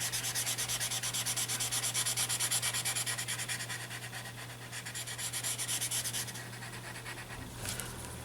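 Paper tortillon rubbing graphite into drawing paper in quick short strokes, several a second, blending the shading. The rubbing stops about six seconds in, followed by a couple of faint knocks.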